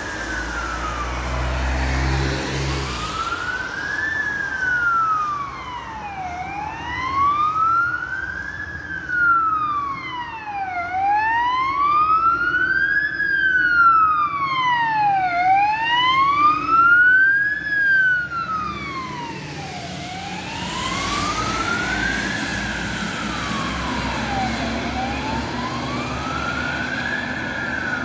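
Fire engine siren on an emergency run, sounding a slow wail that rises and falls about every four and a half seconds. It grows loudest midway as the engine passes, then carries on more faintly as it drives away. A car's tyres and engine rumble by in the first few seconds.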